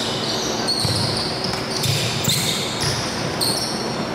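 A basketball bouncing on a hard surface, several dull irregular thuds, with short high-pitched sounds over it.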